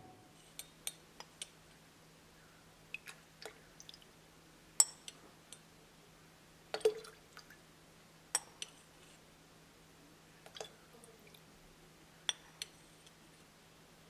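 Glass bowl clinking and tapping against an aluminium pot while melted calendula salve is poured from it: a dozen or so separate sharp clinks, the loudest about five and seven seconds in, over a faint steady hum.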